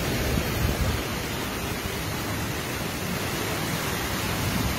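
Heavy rain falling on a flooded street with floodwater running, a steady dense hiss of water with an unsteady low rumble beneath it.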